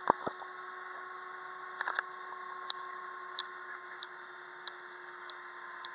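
Airliner cabin noise of an Airbus A320-232 taxiing: a steady hum with two held tones, one low and one higher. Two knocks come right at the start, then faint sharp clicks every half second or so.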